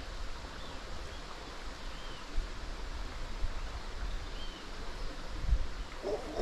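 Water of a small canal running steadily, an even rushing noise. A faint short high chirp recurs about every two seconds, and a few low bumps come near the end.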